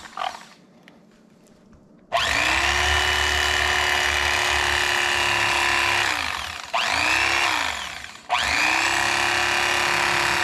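Mister Twister Electric Fisherman corded electric fillet knife running in three spells as it slices a trout fillet off along the backbone. There is a long run starting about two seconds in, a short burst around seven seconds, and another run from just after eight seconds. Its motor whine rises as it starts and sags as it stops.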